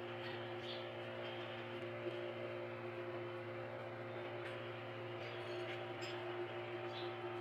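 Steady mechanical hum made of several fixed tones, with a few faint clicks of metal compressor parts being handled.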